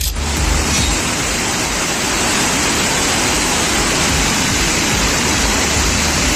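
Steady rushing, hissing noise of a firecracker market on fire, its stock of fireworks burning off amid thick smoke.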